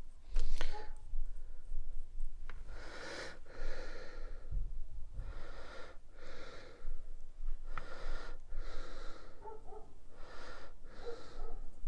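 A person breathing close to the microphone in slow, repeated in-and-out breaths, with a sharp knock about half a second in.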